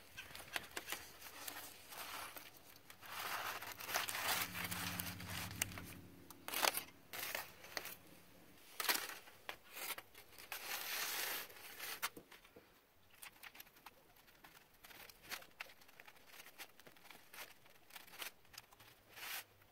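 Aluminium foil crinkling and rustling as a pizza is handled on it, loudest in the first half. After that come quieter scrapes and small clicks as a knife cuts through the pizza crust.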